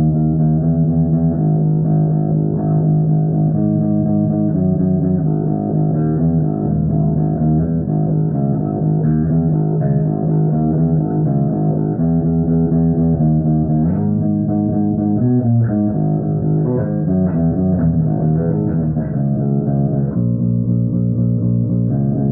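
BC Rich Warlock being played: a run of sustained notes and chords that change every second or so, with notes bent in pitch about two-thirds of the way through.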